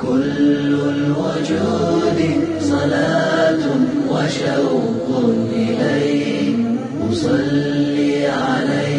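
Islamic nasheed sung in Arabic: voices chanting long, sliding melodic phrases without instruments.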